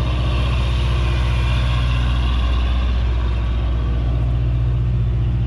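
Vehicle engine running steadily at low revs: a deep, even hum.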